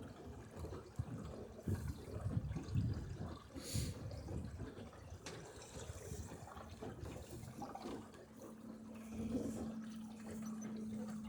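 Water lapping and gurgling against the hull of a small sailboat under way, in irregular low surges with a brief splash about four seconds in. A steady low hum joins in the last few seconds.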